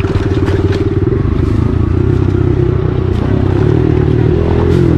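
Single-cylinder four-stroke dirt bike engine running steadily under throttle, its note wavering up and down near the end, with a few sharp clicks and rattles from the bike on the trail.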